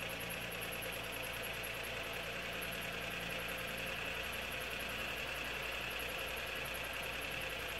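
Electric motor and gear drive of a powered bead roller running steadily with an even hum and whine, feeding sheet metal between the rolls to press a step (offset bead) into the panel.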